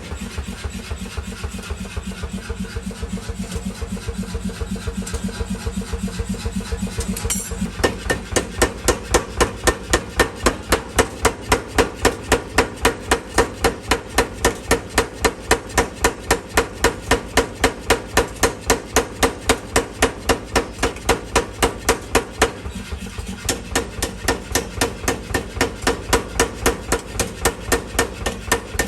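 Mechanical power hammer pounding forging steel in a steady rhythm of about three blows a second over the hum of its motor. The blows get harder about seven seconds in and ease off again near the end.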